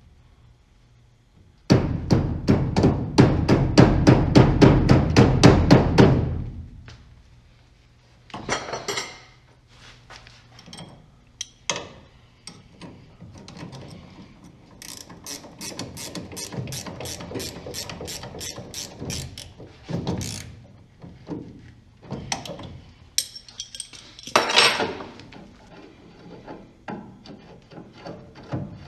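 Hand ratchet wrench clicking fast and evenly for about five seconds, then more ratchet clicking later on, between scattered metallic clinks and short clattering of tools and parts.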